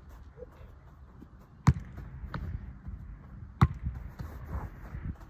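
A football kicked hard twice, about two seconds apart. Each kick is followed by a softer thud as the ball is caught in a goalkeeper's gloves.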